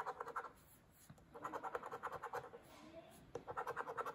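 A coin scratching the coating off a paper scratch-off lottery ticket: three bouts of rapid back-and-forth strokes, each about a second long, with short pauses between.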